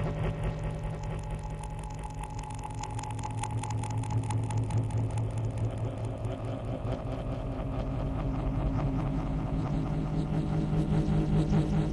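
A steady low rumbling drone with a fast flutter running through it, engine-like in character, dipping a little in level about two seconds in and swelling again near the end.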